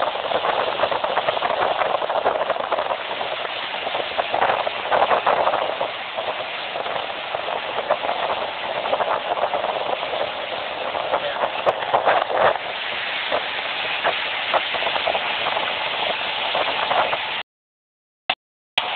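Speed boat running at speed over open water: a steady engine with wind rushing over the microphone. The sound cuts out for about a second near the end.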